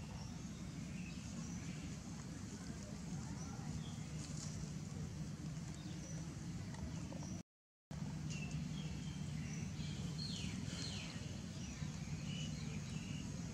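Outdoor ambience: a steady low hum with scattered short, high-pitched chirps, busiest in the second half. The sound cuts out completely for a moment just past halfway.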